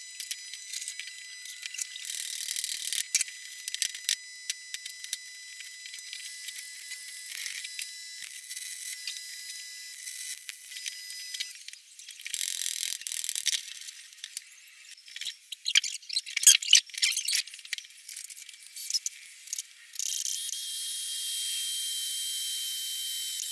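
Stick welder arc crackling on steel for about the first twelve seconds. Then comes a run of sharp metallic knocks, and near the end a cordless drill's motor whirring steadily.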